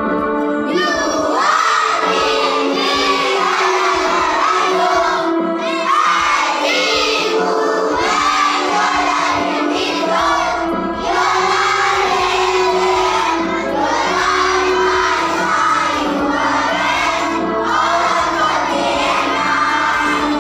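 A group of children singing a prayer in unison, with a steady electronic keyboard accompaniment holding sustained notes underneath. The singing comes in about a second in.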